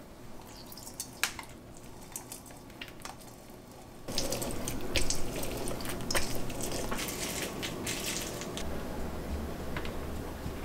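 A halved orange squeezed and twisted by hand on a stainless steel Bellacucina citrus squeezer: wet squelching and dripping of juice with small clicks against the metal, getting louder about four seconds in. A low steady hum comes in near the end.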